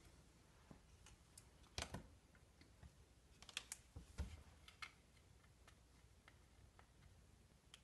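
Faint, scattered clicks and taps of a plastic dough mold and plastic cutting tool being handled, with a few louder clicks about two and four seconds in and lighter ticks after.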